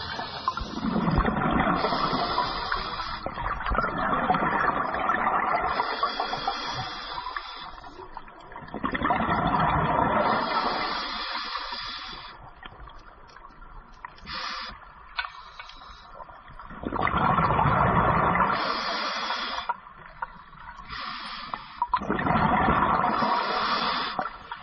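A scuba diver breathing through a regulator underwater. Each breath brings a hiss and then a loud rush of exhaled bubbles, about six breaths in all, with a longer gap about halfway.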